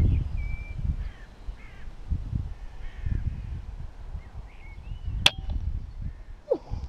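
A single sharp crack about five seconds in, the shot of a Weihrauch HW100KT pre-charged pneumatic air rifle, heard over a low uneven rumble and faint bird chirps.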